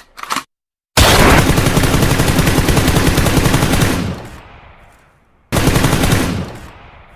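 Machine-gun fire: a long rapid burst of about three seconds that trails off, then a second, shorter burst that also fades out.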